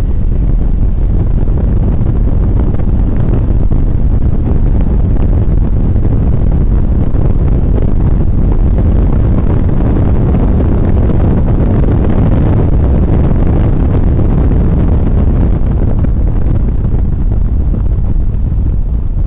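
Cabin noise of an Acura NSX at track speed: the V6 engine under load, blended with wind and road roar, as one steady loud rumble that swells somewhat in the middle.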